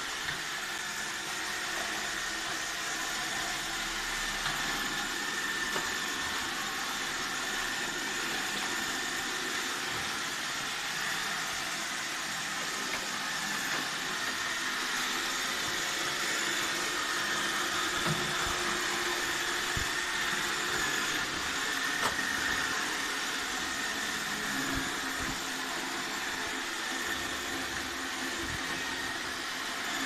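iRobot Roomba 612 robot vacuum running: a steady whir from its vacuum motor and spinning brushes as it moves across a tiled floor, with a few faint clicks.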